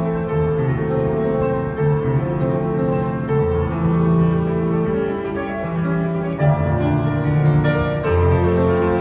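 Piano playing a slow piece in held chords over a bass line that moves every second or so.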